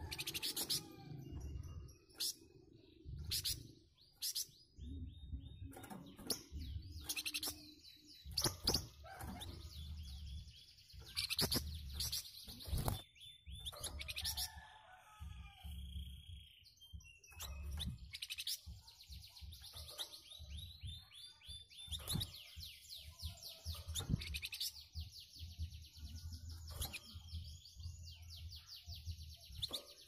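Caged flamboyan bird, a small brown Indonesian songbird, singing its dense, rough chattering song: repeated bursts of rapid high trills and harsh notes, coming thicker in the second half.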